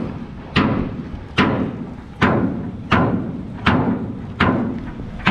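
Hammer blows in a steady rhythm, about seven strikes a little under a second apart, each with a short echo, during repair work inside a ship.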